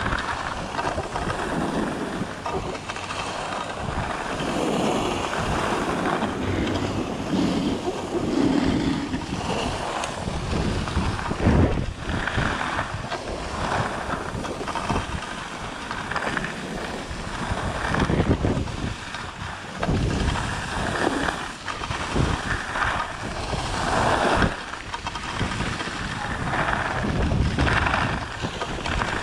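Wind rushing over the microphone of a moving skier, with the skis scraping and swishing over packed snow in a run of repeated turns, a surge every second or so.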